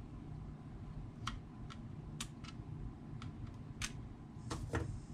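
Scissors snipping at a rubber band wrapped around a deer skull: a string of sharp, uneven clicks, with a heavier double snip near the end.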